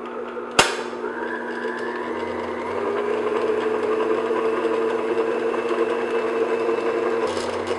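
Stand mixer motor running at medium-low speed, its paddle beating almond paste and sugar in a glass bowl: a steady hum with a whine that climbs in pitch over the first couple of seconds as it comes up to speed. One sharp click about half a second in, and the motor cuts off right at the end.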